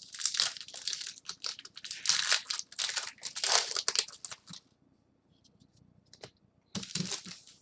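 Trading-card pack wrappers crinkling as the packs are handled, for about four and a half seconds, then a shorter burst of crinkling near the end.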